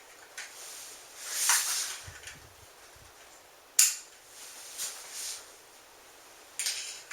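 Metal parts of a Mossberg 500 pump shotgun being handled and fitted back together: a scraping slide about a second and a half in, a single sharp metallic click near four seconds, then a softer scrape and two quick clicks near the end.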